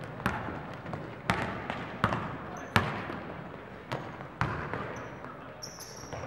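Basketball being dribbled on the court: about six sharp, echoing bounces at uneven spacing, followed by a couple of short high squeaks near the end.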